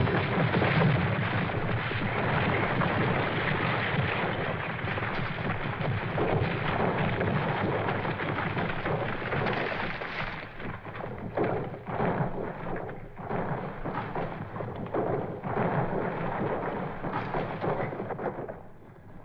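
Rockslide: a continuous rumble of rocks and earth sliding down a hillside, with separate rock impacts clattering through the second half. It fades near the end.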